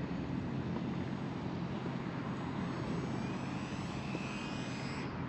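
Small electric RC foamboard bush plane in flight, its motor and propeller giving a faint high whine that slides in pitch over the second half and stops shortly before the end, over a steady outdoor noise.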